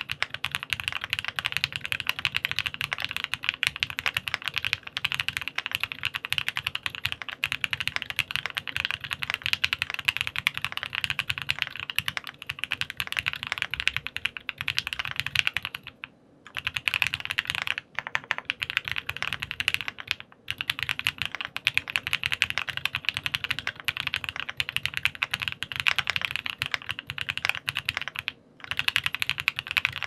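Fast, continuous typing on a Bubble75 mechanical keyboard with Krytox-lubed 43 Studio OPBlack linear switches on a polycarbonate plate and clone GMK Shoko keycaps: a dense run of keystrokes, broken by a few brief pauses.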